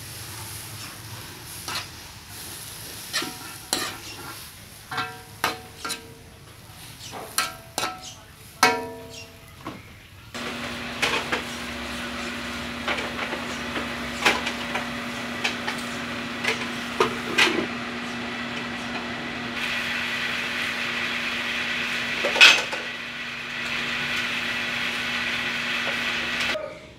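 A metal spatula scraping and clinking against an aluminium wok as shredded banana heart is stirred, the pan ringing briefly at some strikes. About ten seconds in it changes to a steady sizzling hiss over a low hum, with spatula clicks continuing, until it cuts off just before the end.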